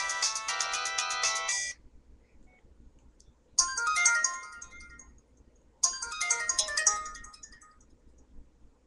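Mobile phone ringtones playing through the phone's small speaker: a high synthesized melody that cuts off about two seconds in, then two short snippets of tune about two seconds apart, each dying away.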